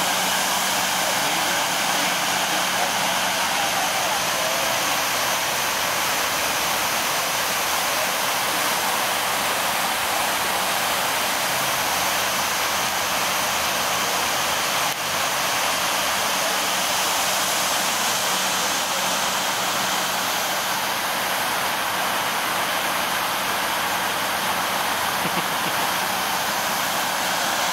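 Water pouring over the walls of the 9/11 Memorial reflecting pool into the basin, a steady, unbroken rushing hiss.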